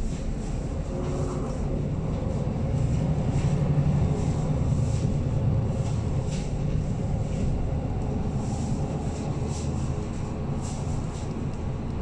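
MAN A22 city bus heard from inside the saloon while under way: a low engine and drivetrain drone that grows louder about three to four seconds in and then eases, with light rattles from the cabin fittings.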